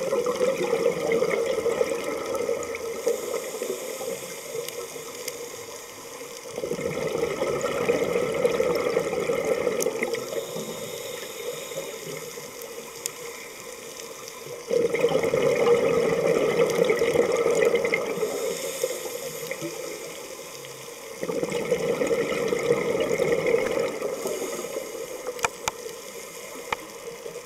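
Scuba diver breathing through a regulator underwater: four loud rushes of exhaled bubbles about every seven seconds, each fading out, with a softer hiss of inhaling between them.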